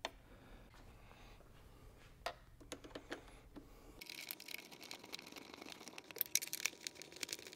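Faint metallic clicks and light scraping of a hex key turning low-profile M6 bolts, run in loosely rather than fully tightened. A few sharper clicks come about two seconds in and again near the end.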